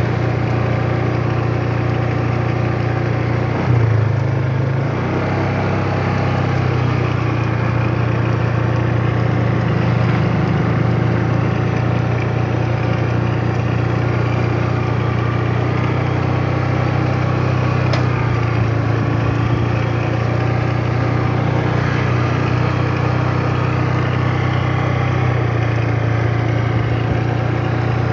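Motorcycle engine running steadily at a slow, even cruising speed, with a brief louder moment about four seconds in.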